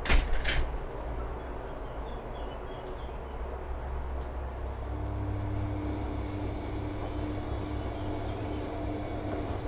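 Bosch front-loading washing machine in the main wash of a 90 °C cotton cycle, its drum turning sudsy laundry with a steady low rumble. About halfway through, the drum motor starts a turn with a steady hum. A couple of knocks come at the very start.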